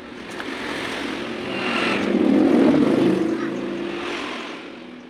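A passing engine, swelling to its loudest about halfway through and then fading away.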